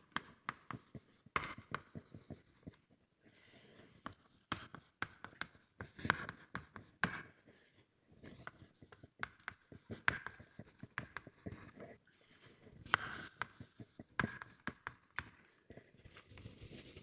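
Hand writing on a lecture board: an irregular run of short taps and scratchy strokes as formulas are written out.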